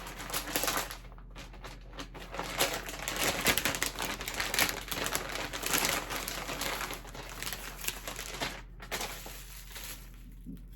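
Wig packaging being handled and opened, rustling and crackling irregularly as the wig is unwrapped, then dying down near the end.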